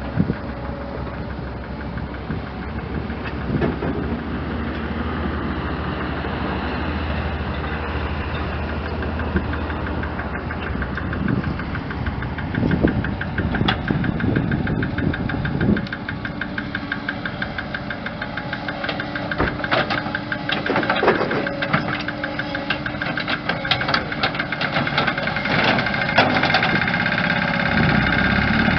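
An engine running steadily, with scattered knocks and rattles coming in through the second half.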